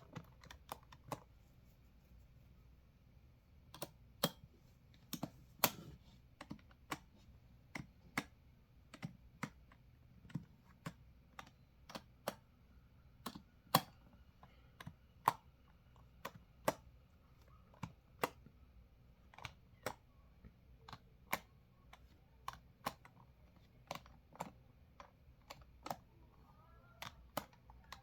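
Computer keyboard being typed on slowly: separate keystroke clicks, about two or three a second, with a pause of about two seconds near the start.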